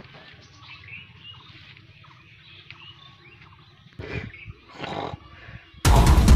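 Faint bird chirps over a low outdoor hum, then two short, louder animal-like cries about four and five seconds in. Loud music cuts in near the end.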